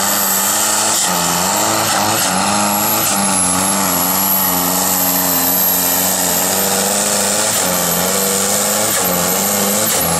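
Diesel engine of a blue New Holland Super Farm class pulling tractor running flat out under full load as it drags the weight sled, its note holding high and steady with a few brief dips in revs.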